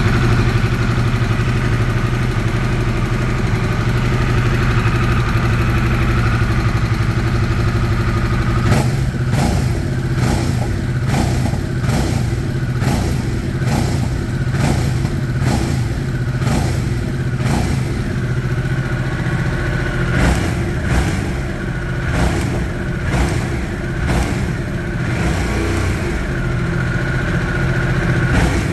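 Harley-Davidson Sportster S's stock-exhaust Revolution Max 1250T V-twin idling steadily. About nine seconds in, the steady running gives way to a long series of short, quick throttle blips, easing back towards steadier running near the end.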